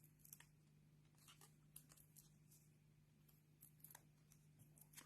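Near silence: faint scattered light ticks and rustles of paper card pieces being handled, over a low steady hum.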